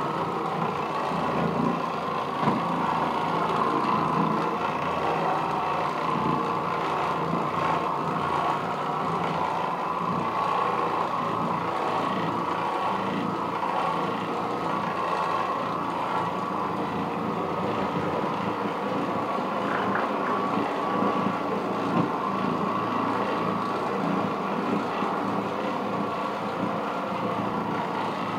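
Oreck Orbiter orbital floor machine running steadily as its bonnet pad scrubs across carpet, a constant motor drone.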